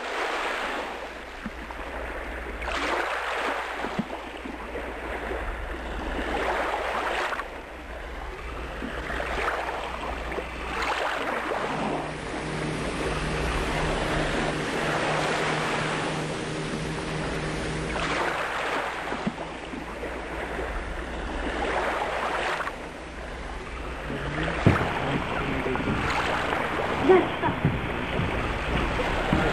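Small waves lapping at the shore, swelling and ebbing every couple of seconds, over a low wind rumble. A low engine-like hum with a few steady tones joins from about twelve seconds in to about twenty-four seconds, and a couple of sharp knocks come near the end.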